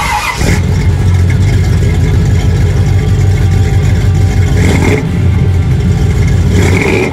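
1967 Pontiac GTO's 400 cubic-inch V8 running, heard from behind at the dual tailpipes: a deep, steady exhaust rumble with short revs about five seconds in and again near the end.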